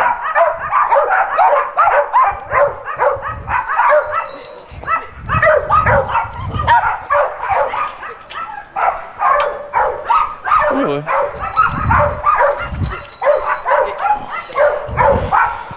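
Many dogs in shelter kennel runs barking and yipping at once, short overlapping barks with no let-up.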